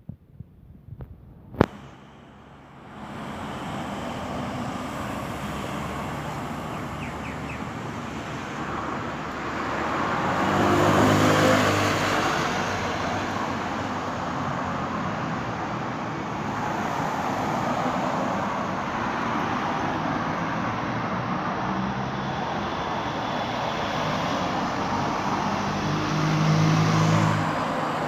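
Road traffic running steadily, with vehicles passing close by about ten seconds in and again near the end. A single sharp click comes just before the traffic noise rises.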